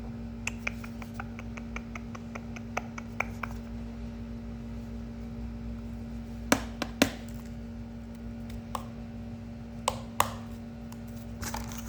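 Fingers tapping and clicking on a plastic Tic Tac container: a quick run of light taps for about three seconds, then a few sharper, louder clicks in pairs later on. A steady low hum lies underneath.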